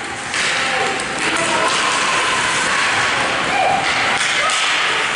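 Spectators shouting and cheering in an echoing ice rink during hockey play, with scattered knocks of sticks and puck.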